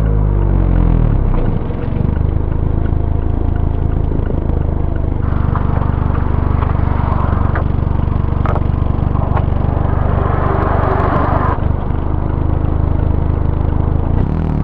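Mazda ND Roadster (MX-5) inline-four engine and exhaust while driving: the engine note falls as the car slows in the first second or two, holds steady at low revs, then starts to rise again near the end as it accelerates. A rougher road hiss with a few sharp ticks joins for several seconds in the middle.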